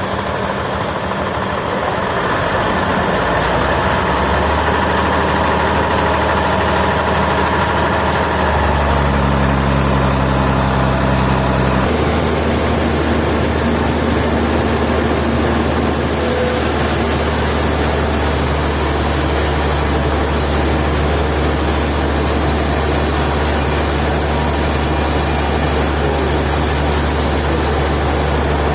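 A heavy engine running steadily. Its low hum shifts abruptly about 8 seconds in and again about 12 seconds in, and a high hiss joins it about 16 seconds in.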